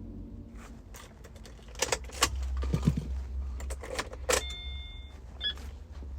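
Car keys jangling and clicking as a key is handled and worked in the ignition of a 2016 Subaru Forester during key programming. About four seconds in, a short, high electronic beep sounds.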